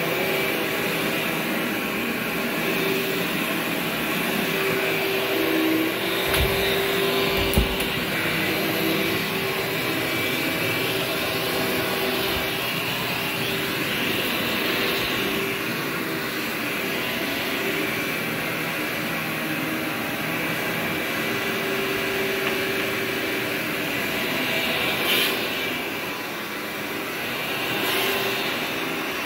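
Workhorse upright vacuum cleaner running steadily while being pushed over carpet, a constant motor hum with airflow hiss. A couple of brief knocks come about six and seven seconds in.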